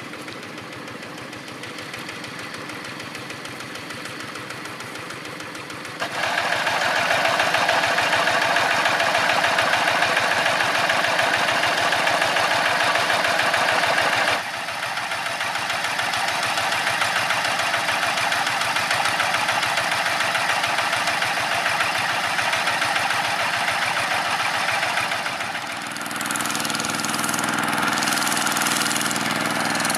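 Single-cylinder diesel engine of a two-wheel walking tractor running steadily under load. The sound changes abruptly three times, getting much louder about six seconds in, dropping back around fourteen seconds, and shifting again near the end.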